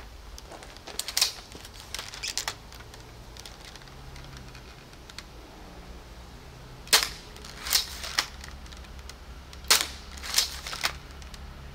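A Faramir Mini Adder 3D-printed repeating pistol crossbow is fired: two sharp shots of the string releasing, about 7 and 10 seconds in, each followed by a couple of lighter mechanical clacks. A few lighter clicks of handling the crossbow come earlier.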